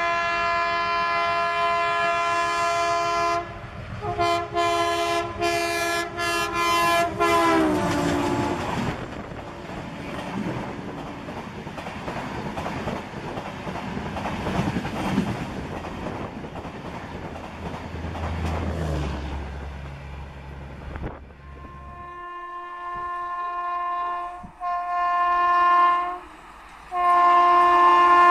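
Shatabdi Express trains passing at full speed. The locomotive horn sounds a long blast and then a broken one, its pitch dropping about eight seconds in as the locomotive passes, followed by the rush and clatter of the coaches going by. After a sudden cut, a second train's horn sounds three blasts as it approaches.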